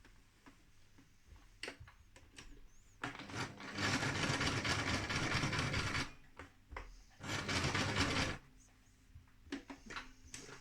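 Sewing machine running in zigzag stitch in two runs: about three seconds, then about a second, with light clicks and fabric handling in the pauses between.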